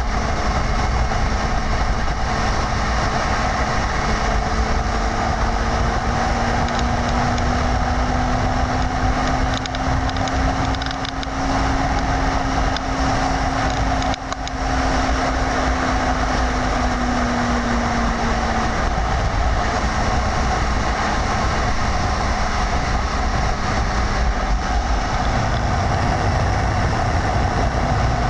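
A vehicle moving at speed: steady, loud road and wind noise with an engine note that rises slightly, then fades out about two-thirds of the way through.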